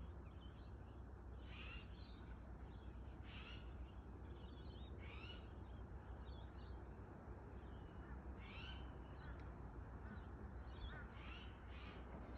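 Birds calling at dusk: faint, short rising chirps repeating every second or two, some in quick pairs, over a low steady background hum.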